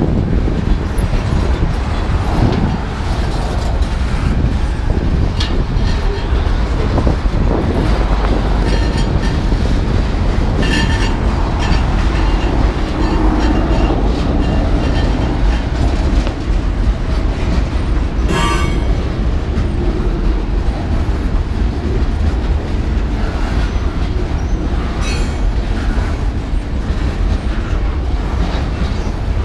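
Freight cars of a Portland and Western train rolling past close by: a steady heavy rumble of steel wheels on the rails, with a brief high wheel squeal about two-thirds of the way through and fainter ones now and then.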